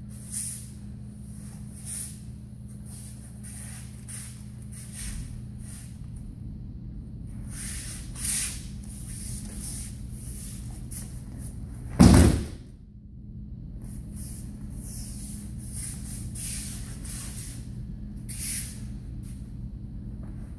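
A judo throw landing: one loud thud of a body and a breakfall slap on the tatami mats about twelve seconds in, echoing briefly. Around it, repeated rustling of the heavy cotton judo uniforms and movement on the mats, over a steady low hum.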